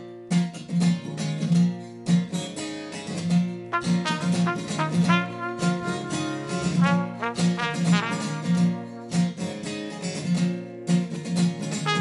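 Acoustic guitar strumming a steady rhythm while a cornet plays the melody over it.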